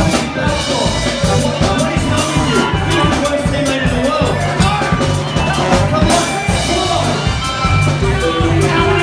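Loud band music with a drum kit keeping a steady beat over a bass line.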